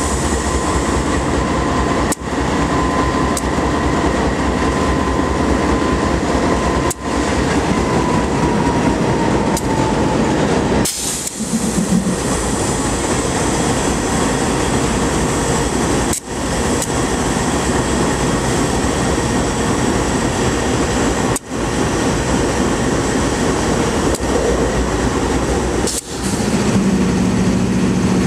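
Train cars rolling past on the rails in a steady, continuous rumble, with brief dips in loudness about every five seconds. A faint thin tone, likely wheel squeal, sags slightly in pitch and fades out about ten seconds in.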